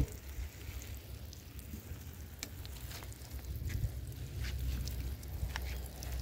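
Water showering from a plastic watering can's rose onto garden soil and seedlings, a patter of many small drops, over a low steady rumble of wind on the microphone.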